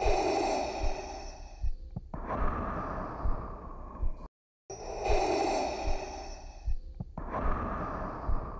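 Darth Vader's respirator breathing: slow mechanical inhales and exhales of about two seconds each, with a faint low thump repeating beneath. The sound drops out completely for a moment a little past the middle.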